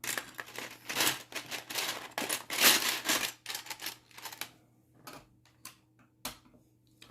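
Small plastic Lego pieces being handled, clattering and clicking against each other and the table in a dense run for about three seconds, then a few scattered clicks.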